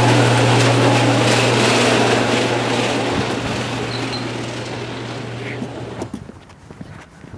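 An engine running at a steady speed, fading away and stopping about six seconds in.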